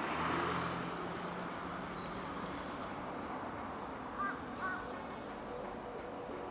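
Steady road-traffic noise, with a vehicle's engine hum loudest in the first second, and a crow cawing twice about four seconds in. Music begins near the end.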